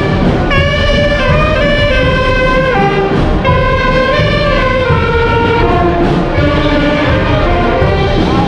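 Music: a melody of held notes that change pitch every second or so, loud and continuous, over a dense low layer.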